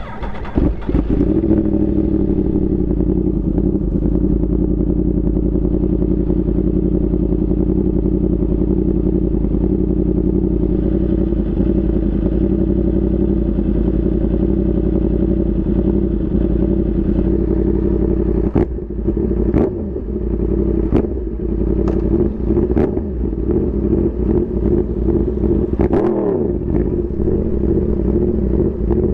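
Yamaha R1's inline-four engine idling steadily, then from about two-thirds of the way through, several sharp throttle blips with the revs dropping back in between.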